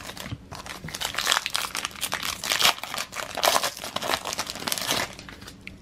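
Foil wrapper of a 2009 Upper Deck baseball card pack crinkling as it is torn open and the cards are pulled out, stopping about five seconds in.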